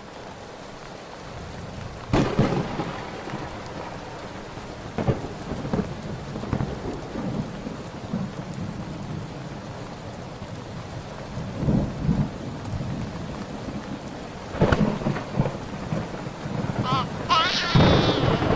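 Steady rain with thunder cracking and rumbling several times. Near the end a baby starts crying.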